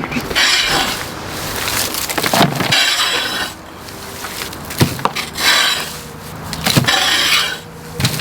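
Chainsaw cutting wood, the chain's rasp coming in about five short bursts over a low running engine note.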